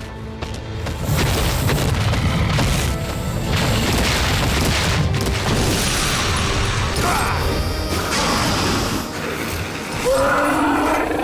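Cartoon action sound effects: heavy rumbling and booming over dramatic background music, with a wavering pitched sound near the end.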